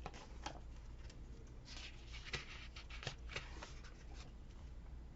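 Faint rustling and a few light taps of paper and stickers being handled.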